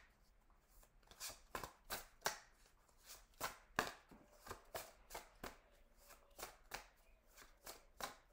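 A deck of tarot cards being shuffled by hand: a faint, irregular run of short card slaps and clicks, about two a second.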